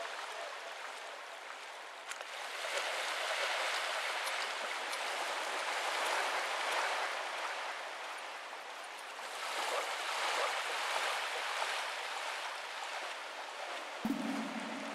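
A wash of rushing, surf-like noise with no bass, swelling and ebbing twice like waves coming in. A low sustained musical tone enters near the end.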